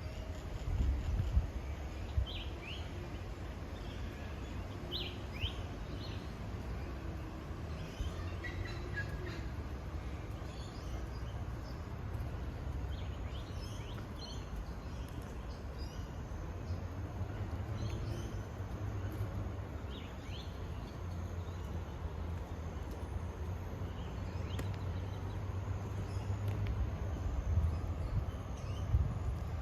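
Riverside outdoor ambience: small birds chirp in short calls every few seconds over a steady low rumble.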